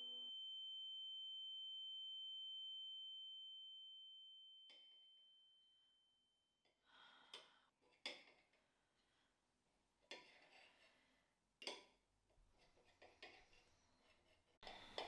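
A sustained high ringing tone from the soundtrack fades out, then a metal fork taps and scrapes on a ceramic plate: a few light, sharp clinks over quiet room tone.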